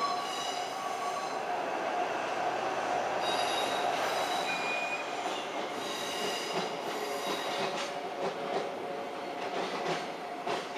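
A steady mechanical rumble with high whining tones that come and go, and a few sharp pops from distant fireworks near the end.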